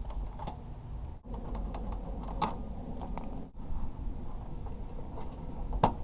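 Scattered light clicks and taps of hardware being handled and fitted while a bumper quick release is installed, over a steady low rumble. A sharper knock comes near the end.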